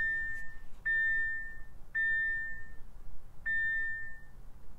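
2017 Audi S3's dashboard warning chime with the ignition switched on: a clear high tone that fades, sounding four times about a second apart.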